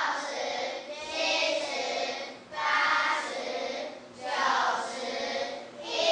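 A group of children's voices singing or chanting in unison, in repeated phrases about a second and a half long.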